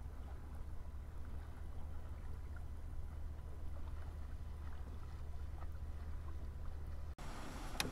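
Water lapping and splashing against the hull of a small sailboat under way, over a steady low rumble. The sound changes abruptly about seven seconds in.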